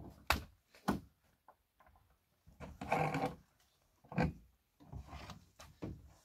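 A few sharp knocks with a longer scraping rub about three seconds in, as of objects, probably wood, being handled and set down.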